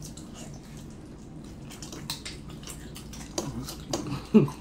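Close-miked eating sounds: scattered soft, wet clicks and smacks of chewing fried chicken, with a few short vocal sounds near the end.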